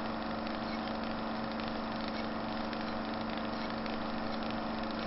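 An engine idling steadily: a held hum with a low, even pulse underneath.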